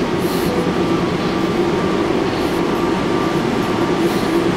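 Plane Train automated people mover at the station platform: a steady mechanical hum with a low drone and a fainter higher tone over it.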